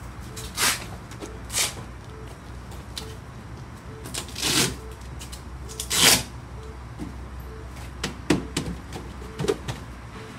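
Handling noises: four short rasping bursts, then a quick run of clicks and taps near the end, over a steady low hum.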